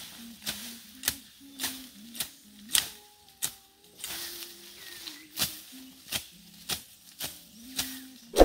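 Machete (cutlass) slashing through grass and weeds in regular strokes, about two a second, with a rustle of cut foliage. The last stroke is the loudest.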